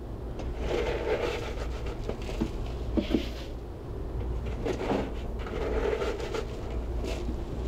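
Blue plastic scoop digging into a drum of dry chromic acid (chromium trioxide) flakes and tipping them into a metal bucket: granular rattling and scraping in several bursts, with a few sharp knocks of the scoop on the containers. A steady low hum runs underneath.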